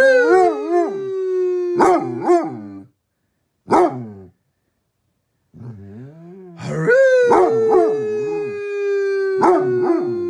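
Basset hound howling: a long howl, a short yelp about four seconds in, then a second long howl that slides slowly down in pitch.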